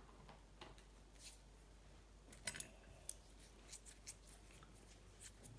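Faint, scattered small clicks and taps of small metal parts and tools being handled, the sharpest about two and a half seconds in. No drilling is heard.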